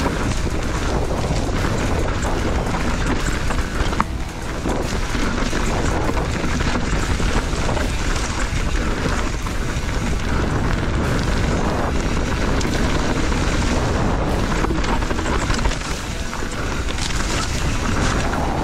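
Wind buffeting the microphone of a camera on a mountain bike ridden fast downhill, with the bike's rattles and frequent sharp knocks from tyres and frame hitting rough ground.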